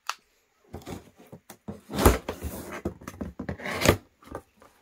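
Taped end flap of a cardboard shipping box being pulled open by hand: packing tape tearing loose and cardboard scraping and rustling in uneven strokes, loudest about two seconds in and again near four seconds.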